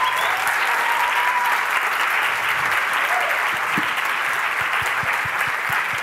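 Audience applauding, with a cheer held for about a second near the start.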